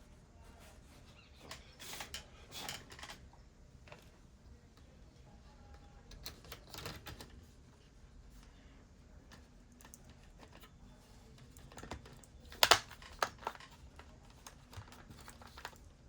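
Scattered light clicks and taps of small parts being handled on a car radio unit under repair, with one sharp click about three quarters of the way in.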